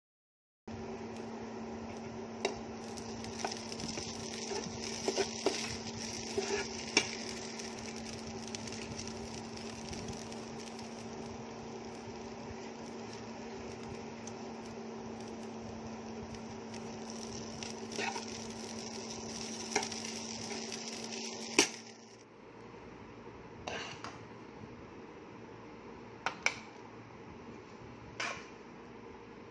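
Steel spoon clinking and scraping against a coated kadai while poha is stirred, with sharp clicks scattered over a steady hiss and hum. About 22 seconds in the background drops lower, and a few more clinks follow.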